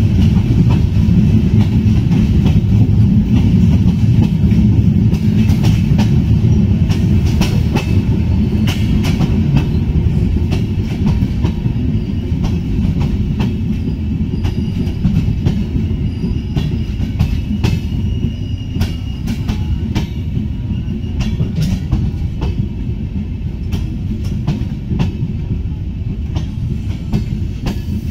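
Bangladesh Railway passenger train running along the track, heard from aboard the carriage: a heavy rumble of wheels on rails, with scattered clicks as the wheels cross rail joints and a faint, thin wheel squeal in the middle. It grows slightly quieter over the second half.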